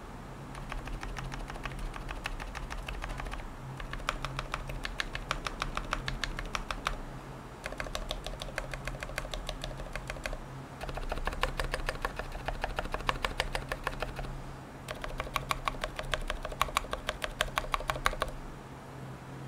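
Typing on a NINJA87 Alu XO aluminium tenkeyless mechanical keyboard with Healios v2 silent linear switches, lubed with 205g0 and TX-filmed, and lubed stabilizers. It comes in five quick runs of keystrokes with short pauses between them, and stops shortly before the end.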